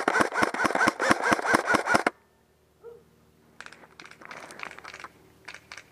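Airsoft electric rifle (AEG) firing a full-auto burst of about two seconds: rapid, evenly spaced cracks of the piston cycling, each with the whine of the gearbox motor. After a short pause comes a fainter, irregular clatter of clicks.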